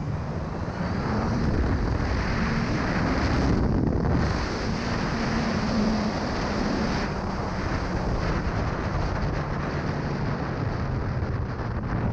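Motorcycle engine of a Honda CB1000R under way, its pitch climbing over the first few seconds, breaking briefly about four seconds in, then easing steadily lower. Steady wind noise on the microphone throughout.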